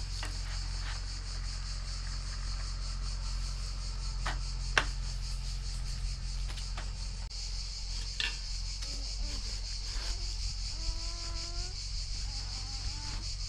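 Insects chirring steadily and high-pitched, with a few sharp clicks in the first half as a folding aluminium camping table is handled and set up.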